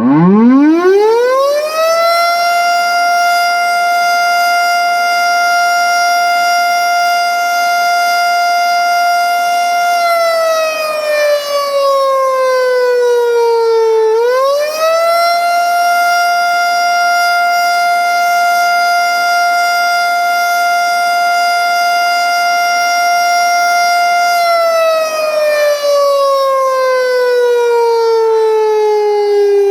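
STH10 outdoor warning siren winding up from silence into a loud steady wail. About 10 seconds in, the pitch sags as it winds down partway, and a few seconds later it climbs back up to the same steady tone. It starts winding down again near the end.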